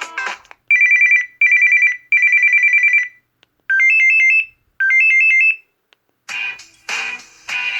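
Samsung Gusto 3 flip phone playing its built-in ringtones: an electronic telephone ring that warbles rapidly between two high pitches in three bursts, then a short rising three-note beep phrase played twice. About six seconds in, a musical ringtone starts.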